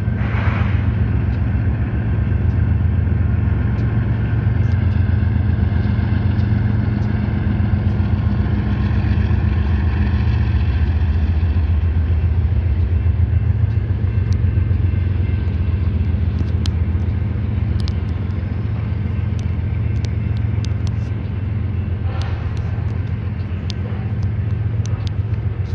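Steady low engine rumble as a freight train goes through the crossing. The last of a diesel locomotive's horn cuts off just at the start.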